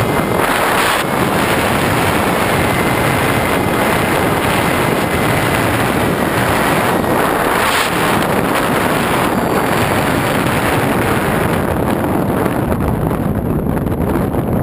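Loud wind and airflow noise buffeting the microphone of a camera on board a foam RC FPV plane flying fast and low in strong wind. A faint whine from the plane's electric motor and propeller holds a steady pitch for a few seconds partway through.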